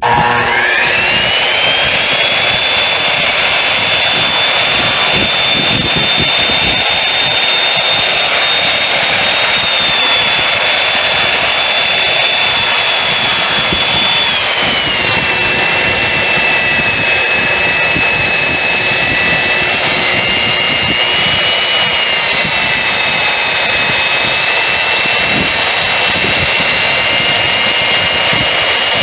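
Power saw motor starting suddenly and running with a steady high whine while cutting off a foundation post; its pitch drops about halfway through and stays lower.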